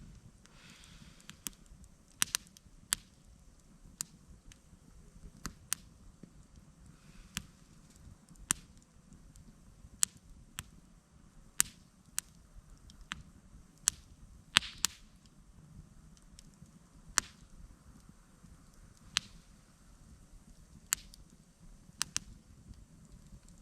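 Campfire crackling: sharp, irregular pops of burning wood, about one or two a second, with a brief cluster of louder pops around the middle.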